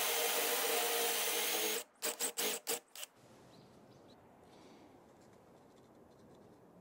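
Cordless drill spinning a Forstner bit as it bores a flat-bottomed hole into plywood. It runs steadily, stops about two seconds in, and then gives several short bursts within the next second.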